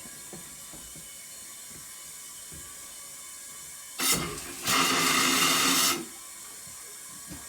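Compressed air rushing out of an open plumbing line as the water lines are blown out for winterizing: a short blast about four seconds in, then a longer loud rush that cuts off suddenly after about a second and a half, over a faint steady hiss.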